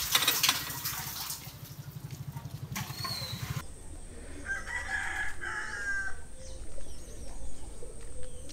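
Water splashing and pouring off a brass bucket as it is hauled up from a well by rope and pulley, followed by a fast, even, low rattle. After a sudden cut, a rooster crows once, about four and a half seconds in.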